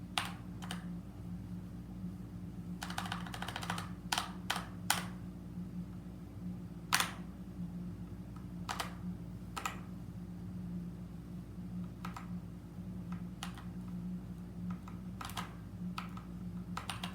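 Keys of a mechanical keyboard being pressed: single clicks and short quick runs of clicks at irregular intervals, with a dense flurry about three seconds in. A steady low hum lies underneath.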